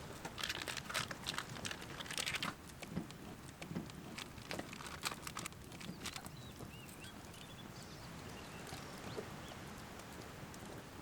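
A run of sharp clicks and knocks from things being handled, bunched in the first half, then a steady quiet outdoor background with a few faint high chirps.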